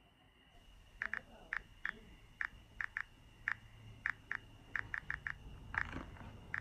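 An irregular run of short, sharp clicks, about three a second, starting about a second in. Under them is a low rumbling drone that slowly builds, with a faint steady high tone.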